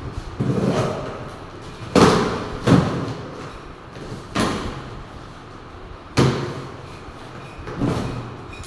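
A cardboard air-conditioner carton being handled and opened: about six irregular thumps and knocks, with scraping of cardboard between them.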